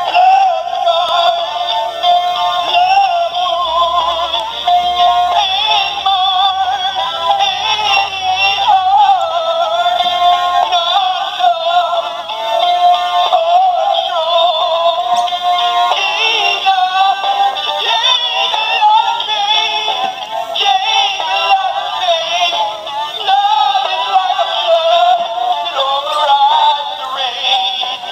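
Battery-powered plush singing dog toy playing a sung song through its small speaker, thin with almost no bass, its batteries nearly flat.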